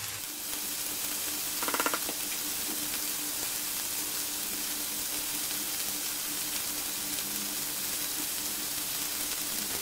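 Chopped onion, tomato, peas and capsicum sizzling steadily in hot oil in a nonstick frying pan on medium heat. A faint steady low hum runs underneath, and there is one brief ringing clink about two seconds in.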